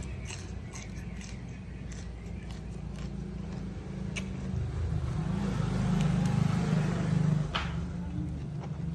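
Low, steady motor-vehicle rumble that swells a little past halfway and eases near the end, with a few faint clicks.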